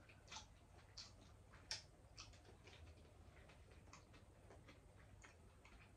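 Faint, irregular clicks of chopsticks against ceramic rice bowls during a meal, a few a second at most, one sharper click about two seconds in.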